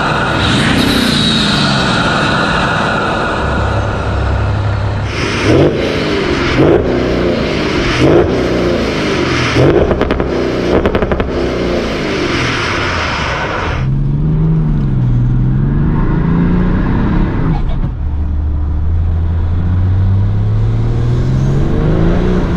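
BMW M57D30 3.0-litre straight-six diesel with a big GTB30V turbo being driven hard, its pitch repeatedly climbing and dropping through the gears. From about five to eleven seconds in, a string of short, loud bursts of turbo flutter comes on each lift-off; near the end the engine pulls up again in a steady rise.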